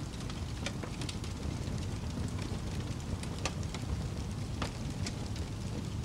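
Steady rain ambience: an even hiss over a low rumble, with scattered sharp drops ticking through it.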